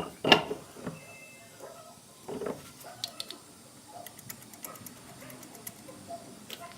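Workshop handling noise: a sharp knock near the start and a duller knock about two seconds in, then a run of light metallic clicks and ticks from tools and parts being handled during hub bearing replacement.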